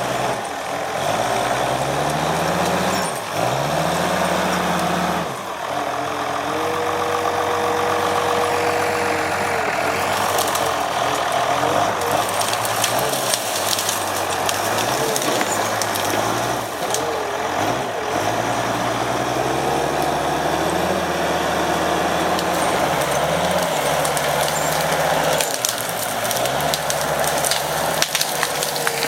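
Timberjack log skidder's diesel engine working under load, its pitch repeatedly climbing as it revs up and then dropping back. About six seconds in, a steady high whine joins it for a few seconds.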